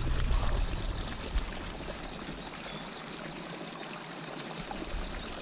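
Water pouring steadily into a pond from an inflow, making a continuous rushing trickle, with a few faint high chirps over it.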